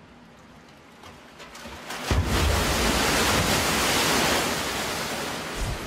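A man-made tsunami surging down a large concrete wave flume: a faint, rising hiss, then a sudden heavy rush of water with a low rumble about two seconds in, slowly fading toward the end.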